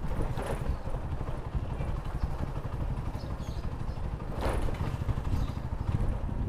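Motorcycle engine running at low speed with road and wind noise, with two brief whooshes, one about half a second in and another around four and a half seconds.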